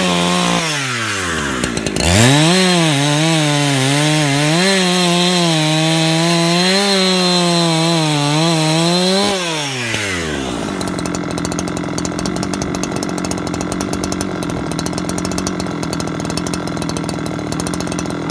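Perla barb 70cc two-stroke chainsaw cutting a log. The revs dip in the first second or two, jump back to full throttle at about two seconds and run high, wavering as the chain works through the wood, until about nine and a half seconds. Then the throttle is released and the saw drops to a steady idle.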